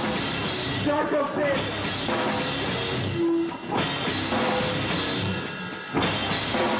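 Hardcore band playing loud rock music with heavy drums and distorted guitars, breaking off briefly a few times.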